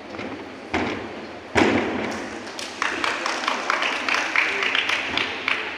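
A gymnast's feet landing on a sprung floor exercise mat: a thud, then a louder, sharper landing about a second and a half in. About three seconds in, spectators start clapping, quick and uneven, which stops just before the end.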